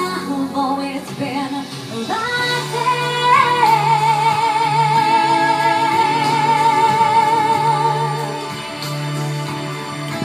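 A woman singing into a microphone over backing music, holding one long note with vibrato for about five seconds. After the note, the accompaniment plays on.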